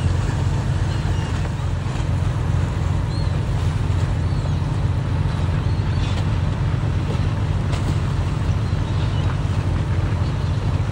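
Fishing boat's diesel engine running with a steady low rumble while a net is hauled aboard, with water churning and splashing alongside.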